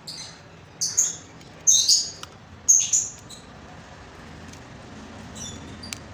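A small bird chirping: four short, high chirps in the first three seconds, then only faint clicks.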